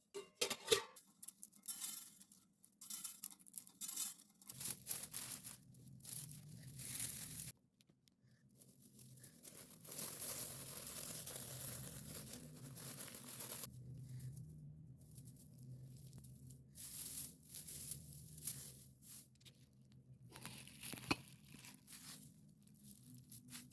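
Dry mustard plants and seed pods rustling and crackling as they are handled during harvest, in irregular bursts with a longer stretch of continuous rustling midway. A low steady hum runs underneath from about five seconds in.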